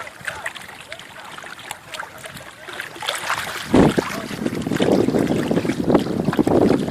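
Water lapping and splashing, with small splashes throughout, becoming louder and fuller about four seconds in.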